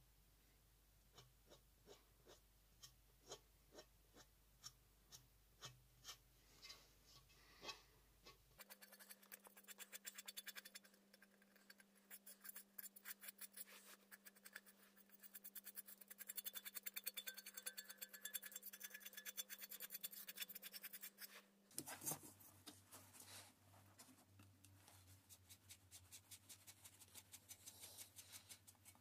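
Faint scraping strokes on the painted steel shell of an M40 helmet, scuffing the fresh paint where it should look chipped. The strokes come about one every half second at first, turn into fast, dense scratching from about nine seconds in, and slow to spaced strokes again after about twenty-two seconds.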